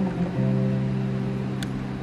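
Acoustic guitar playing a slow, quiet song intro: plucked notes left to ring, with a new low note struck about half a second in and slowly fading.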